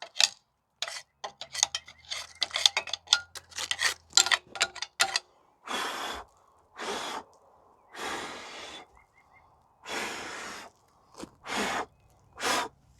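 Metal tools clicking and clinking against the top of a diesel cylinder head while melted connector debris is picked away, followed by about six short hissing blasts with pauses between them as the debris is cleared.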